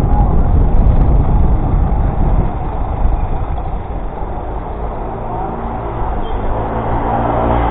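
Road traffic heard from a bicycle in city streets: a heavy low rumble that eases after about two and a half seconds, then a motor vehicle's engine running steadily nearby with a low hum.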